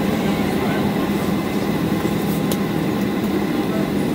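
Steady cabin noise inside a Boeing 737-800 on the ground after landing: an even low rumble with a faint steady whine above it.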